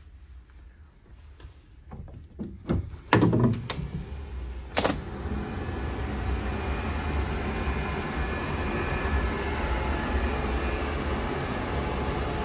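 Clicks and knocks of a sliding balcony door and its handle being worked, the loudest knock about three seconds in and a last one near five seconds. Then a steady rush of outdoor wind noise with a low rumble.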